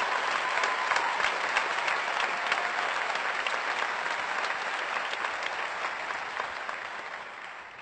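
Audience applauding, a dense clapping with a few cheers, fading away over the last two seconds or so.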